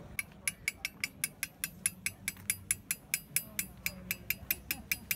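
Hand engraving a metal plate: a small hammer tapping a steel graver, about five light metallic taps a second in a steady rhythm.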